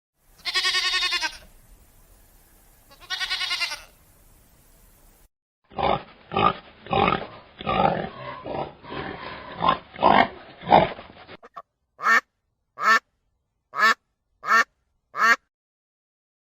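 A sequence of farm animal calls: two long pitched calls, then a rapid run of pig grunts, then a dog barking five times in short, evenly spaced barks.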